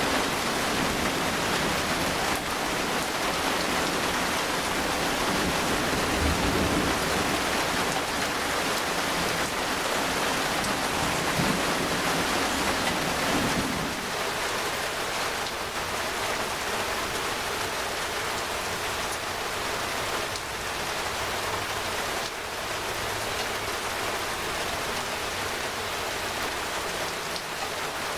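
Steady rain falling, an even hiss of drops. A low rumble underneath drops away about halfway through.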